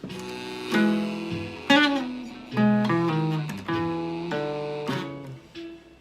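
Blues guitar picking single-note lines in an instrumental passage, with one bent note about two seconds in.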